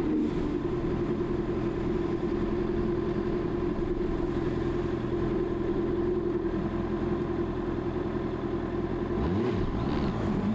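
Honda CB650R's inline-four engine running steadily at a standstill, then revving up with a rising pitch about nine seconds in as the bike starts to accelerate.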